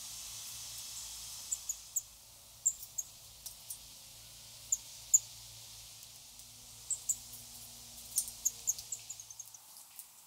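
Small songbirds giving scattered short, high-pitched chirps, mixed with a few sharp clicks.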